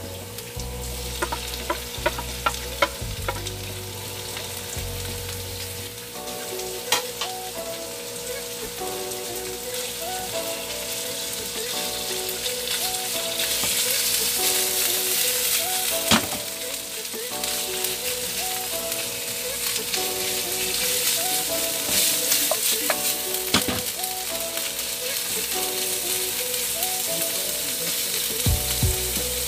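Ground pork frying in a pan with garlic and onion, sizzling steadily while a wooden spatula stirs and breaks it up, scraping and tapping against the pan. The sizzle grows louder about halfway through.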